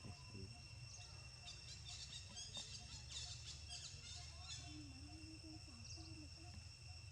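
Quiet outdoor ambience: a steady high insect drone over a low hum, with a flurry of rapid high chirping calls in the middle and a faint wavering low call about five seconds in.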